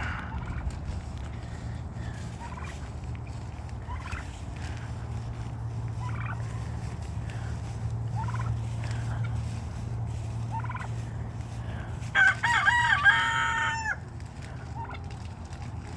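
A tom turkey gobbles once, loud and warbling for about two seconds, some twelve seconds in. Before it come short scattered calls from other poultry over a low steady hum.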